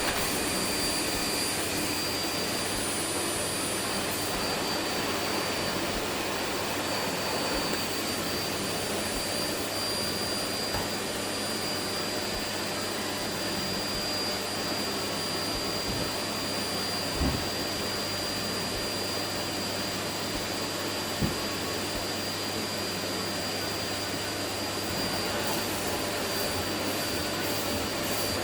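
Vacuum cleaner running steadily with a constant high whine, with two brief knocks in the second half.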